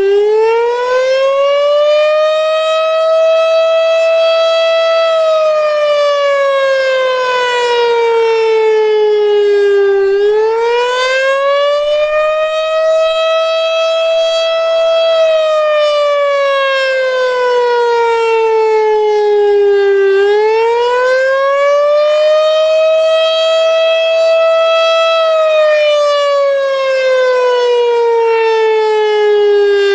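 Federal Signal STH-10 outdoor warning siren sounding the Attack signal during a test, very loud: a wail that climbs in pitch for about four seconds, holds briefly at the top, then falls for about five, three times over.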